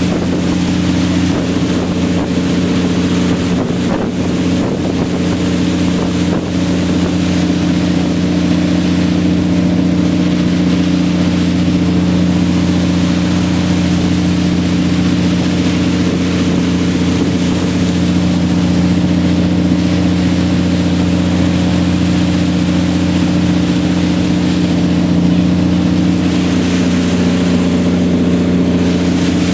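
Speedboat engine running steadily at speed, with the rush of water past the hull and wind on the microphone.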